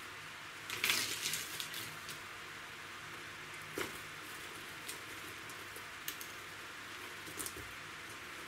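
Orchid bark pieces rustling and clicking under the fingers as they are packed onto the top of a potted orchid, with a crackly burst about a second in and a few light clicks after.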